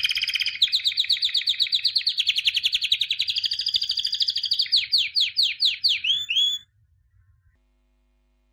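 A songbird singing one long, rapid, high trill that slows into a few separate sweeping notes and stops about two-thirds of the way through.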